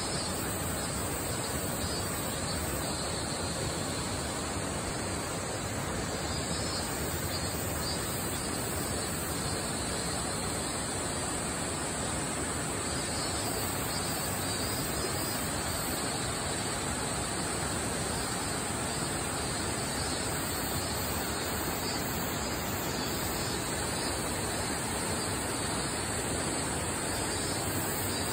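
Flowing river water, a steady even rush without breaks.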